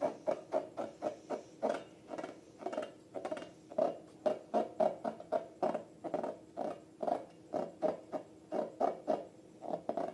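Slime being squeezed and worked by hand: a quick, uneven run of short squelches, about three a second, over a faint steady hum.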